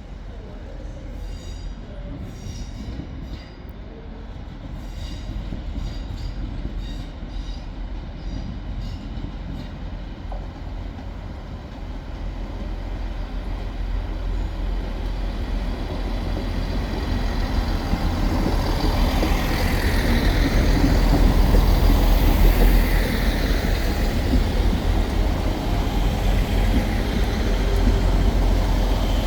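A train on the line, its low rumble building steadily and loudest around twenty seconds in. A series of faint clicks sounds during the first ten seconds.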